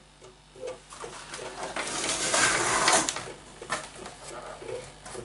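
Handling noise from working on a cable and plug: scattered small clicks and taps, with a louder rustling scrape about two to three seconds in.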